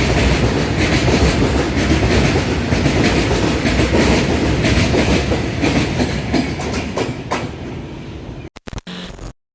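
Mumbai suburban local train running along the track, a loud rumble with the wheels clicking over rail joints. It fades over the last few seconds, then cuts off abruptly near the end.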